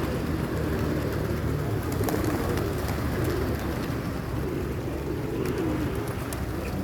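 A flock of pigeons cooing continuously.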